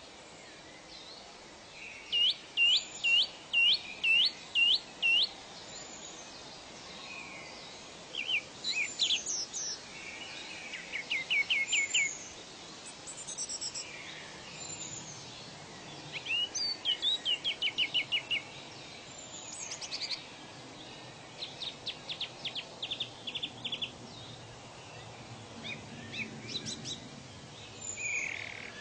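Birds calling in a natural soundscape: every few seconds comes a series of quick, high, repeated notes, some rising and some falling in pitch, over a steady background hiss.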